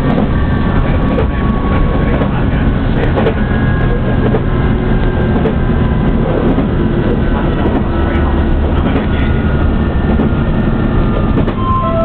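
Inside the passenger car of a JR Shikoku 2000 series diesel tilting train running at speed: a steady low rumble of engine and wheels, with scattered clicks from the rail joints.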